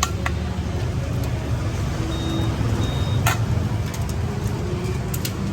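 Steady low rumble of street traffic, with a few sharp knocks of a cleaver chopping roast pork on a block, the loudest about three seconds in. A short high beep sounds twice between about two and three seconds in.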